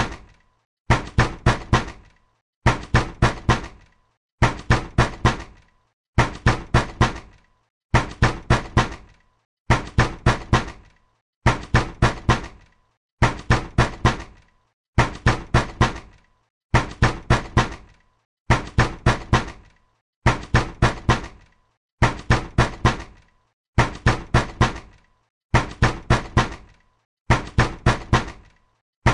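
Angry, forceful knocking on a door: groups of four quick, hard knocks repeating about every two seconds, with brief silence between the groups.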